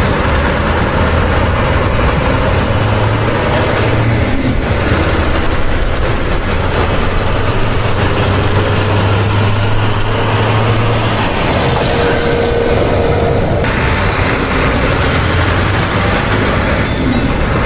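Truck engine running steadily, a deep, even hum.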